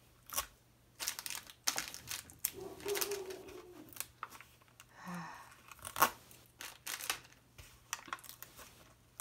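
Sticky tape being peeled and picked off the clear plastic film covering a diamond painting canvas: irregular ripping rasps and crackling plastic, with one sharp snap about six seconds in.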